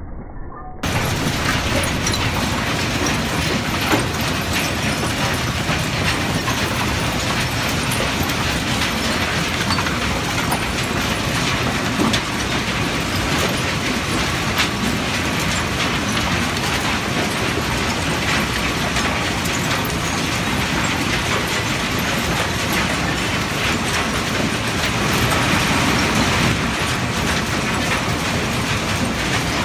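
A construction and industrial waste sorting line running, with its conveyor and air suction separator making a loud, steady mechanical noise and small clicks and knocks of debris through it. The noise starts abruptly about a second in.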